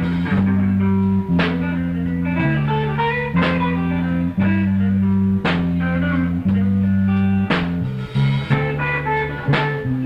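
Live band playing a slow blues: guitar lines over a bass line, with a sharp drum hit about every two seconds.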